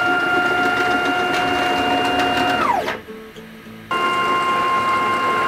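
A desktop CNC router's stepper motors driving the Y-axis gantry along SFU1605 ballscrews: a steady whine that winds down in a falling glide about 2.7 s in and stops. About a second later a second move starts, its whine steady at a somewhat higher pitch. The first move is with the old ball nut, which rattled and knocked as the gantry neared the front; the second is with the replaced nut, a lot better.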